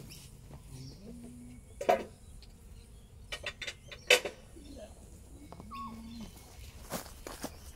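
Several sharp knocks and clicks from handling the wooden beehive and its frames, loudest about two and four seconds in. Between them come two short, steady low buzzes of honeybees flying close by.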